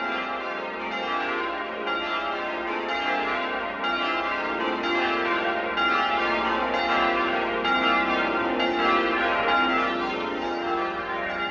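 Village church bells ringing, several bells of different pitch struck one after another in a steady succession: the Sunday-morning call to church.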